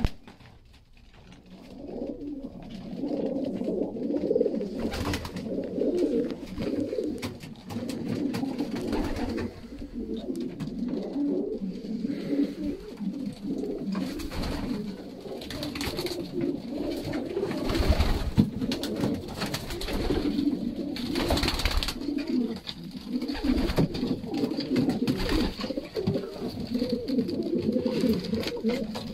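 A loft full of racing pigeons cooing together, a continuous overlapping murmur of many birds, with the odd short clatter of wings as a bird flies up onto the perches.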